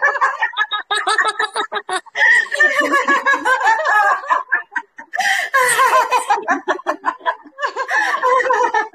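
Women laughing heartily in a laughter-yoga exercise: about four long bouts of rapid ha-ha pulses, broken by short pauses.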